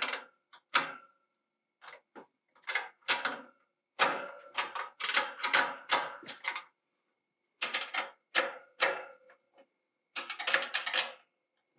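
Ratchet wrench clicking in several quick runs, with sharp metal knocks, as the bolts holding an exhaust fan bracket in a greenhouse frame are loosened so the cross braces can be lined up.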